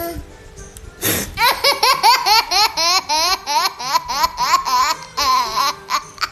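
A young child laughing in a long run of rapid, high-pitched giggles, about four a second, starting about a second in.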